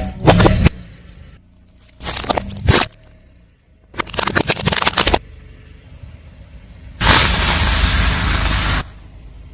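A car tyre crushing brittle objects: three short bursts of rapid cracking and crackling, then about two seconds of steady hiss late on.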